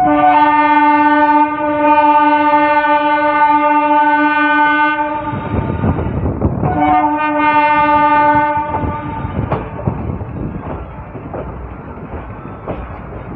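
Train horn sounding two long blasts, the first about five seconds, the second about two seconds, over the rumble and clatter of a moving train's wheels on the rails, heard from aboard the train.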